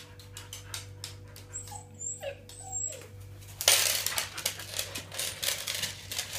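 Siberian husky whining in a few short, high-pitched excited whimpers, then from about halfway a louder rustling, clicking stretch as the dog jostles up close, its collar jingling.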